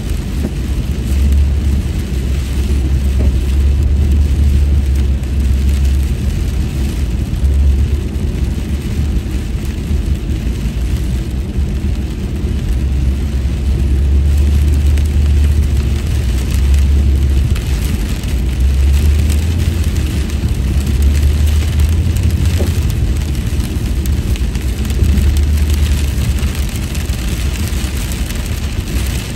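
Steady in-cabin road noise of a car driving on a wet freeway in rain: a deep rumble that swells and eases, with a hiss of tyres on wet pavement and rain on the car.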